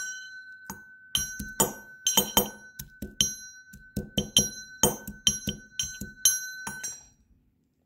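Brass pestle pounding garlic cloves in a brass mortar: repeated sharp strikes, about two a second, each setting the metal mortar ringing with a steady bell-like tone. The pounding stops near the end.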